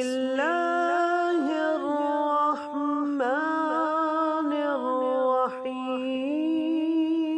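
Vocal intro music: a slow, chant-like melody sung in long held notes, with no beat.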